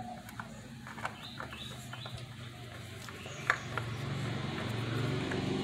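Birds chirping, with a few light clicks and knocks and a low hum that grows louder near the end.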